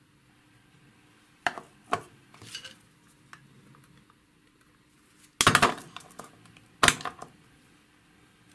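Small brass and steel parts of a coaxial connector assembly clinking and knocking as they are handled: a few light clicks about a second and a half to two and a half seconds in, then a louder clatter about five and a half seconds in and another sharp knock about a second later.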